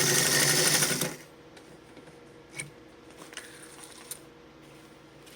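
Singer Spartan 192K sewing machine running at speed, stitching through leather, then stopping about a second in; a few faint clicks follow.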